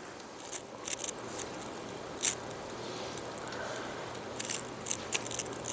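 A few light, separate clicks from a laptop being operated by hand, over quiet room tone with a faint steady hum.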